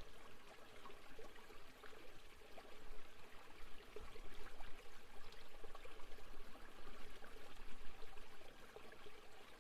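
Waterfall ambience: steady running and trickling water with small splashes.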